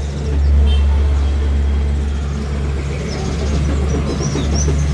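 Steady low engine rumble of motor traffic, with a few faint high bird chirps in the second half.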